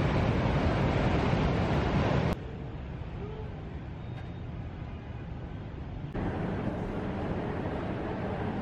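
Road traffic noise from motorbikes and a city bus, loud and even, cutting off suddenly about two seconds in to a much quieter open-air background. Near the end it switches just as suddenly to a moderate steady indoor background hum.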